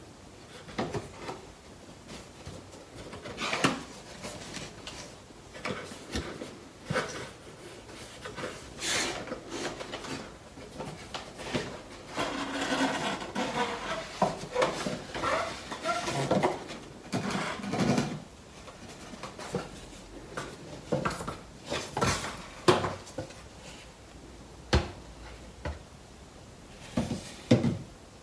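Cardboard packaging handled with knit gloves: scattered taps and knocks as the webcam's outer printed box is worked off its black inner box, with a stretch of rustling and scraping of card on card near the middle, and the boxes knocking down on a wooden floor.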